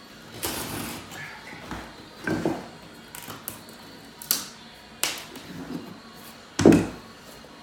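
Thin cut-off tongue strip of thick laminate flooring being worked loose and pulled away from the plank edge by hand. A scraping rustle comes first, then a series of separate knocks and clicks, the loudest a low thump near the end.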